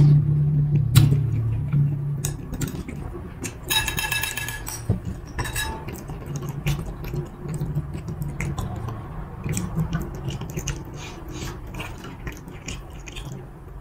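Close-miked eating sounds. Meatball soup broth is drunk from a bowl, the bowl is set down, and then come chewing and the small clicks and scrapes of a metal fork on a ceramic plate.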